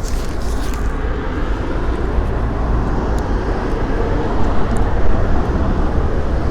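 Steady outdoor background noise with a low rumble, like nearby street traffic, and a few faint ticks.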